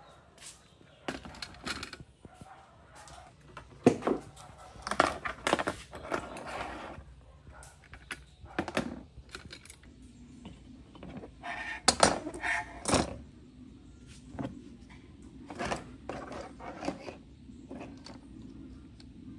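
Metal graphics-card parts (heatsink, shroud pieces and backplate) being handled and set down on a plastic tabletop: scattered clinks, clatters and knocks, a few of them loud.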